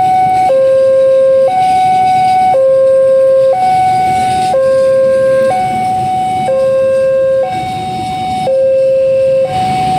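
Railway level-crossing warning alarm sounding a steady two-tone high-low signal, each note about a second long, the sign that the crossing is closed for a train. Underneath, a passenger train's coaches rumble past over the rails.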